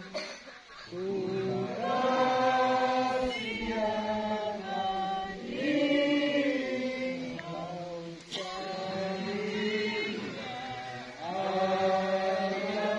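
A group of voices singing an anthem slowly in unison, with long held notes and short breaks between phrases, sung during the salute to the raising of the flag.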